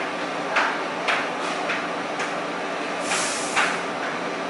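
Subway car standing at the platform with its doors open: a steady equipment hum under a series of short hisses of air, about seven in four seconds.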